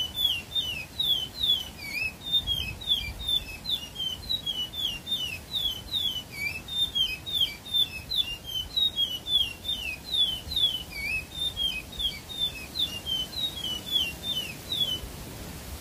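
Caged songbird singing one long unbroken phrase of quick, twisting whistled notes, about three or four a second, that stops near the end.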